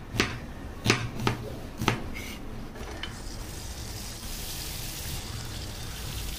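A knife chopping through an onion onto a wooden cutting board: four sharp chops in the first two seconds. From about three seconds in, sliced onions sizzle in butter in a frying pan, stirred with a wooden spatula, a steady hiss.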